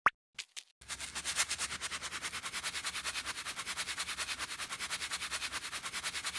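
A short click, then rapid, even scrubbing strokes, about ten a second, like a bristle brush working up lather.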